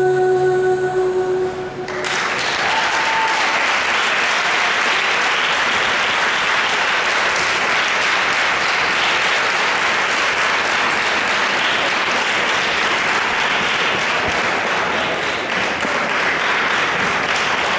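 A held final chord of dance music cuts off about two seconds in, followed by steady, sustained audience applause.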